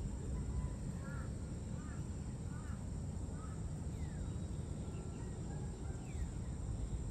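Outdoor evening ambience: a steady low rumble with faint, short bird chirps scattered through it and a couple of thin downward-sliding whistles.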